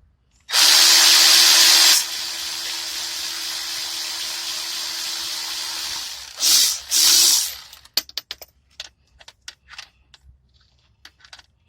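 Cordless power tool loosening a connecting-rod cap bolt on a 4G63 engine being checked for rod knock. It is loud for about a second and a half, runs lighter and steady for about four seconds, then gives two short bursts. Light clicks of parts being handled follow.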